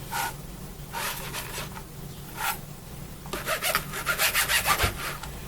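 Serrated bread knife sawing through a thick slice of fried mortadella, with rasping back-and-forth strokes. A few slow strokes come first, then a quicker run of about four strokes a second in the second half.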